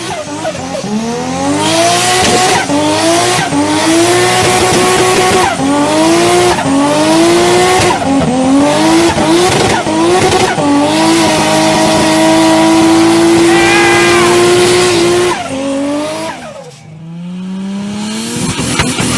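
Turbocharged car engine accelerating hard. Its pitch climbs and drops back at each of several quick gear changes, then holds at one high pitch for about three seconds before falling away and climbing again near the end.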